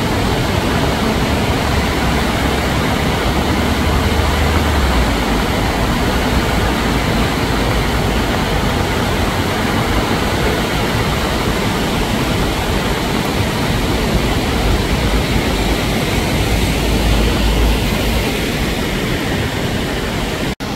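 A swollen river in flood rushing and churning against bridge piers, with heavy rain falling, makes a loud, steady rushing noise. It cuts out for an instant near the end.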